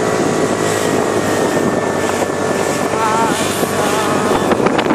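Motorbike engine running steadily while riding, picked up by a phone fixed to the helmet, its pitch rising slightly at the start. A few short wavering high tones come about three seconds in, and a quick run of clicks near the end.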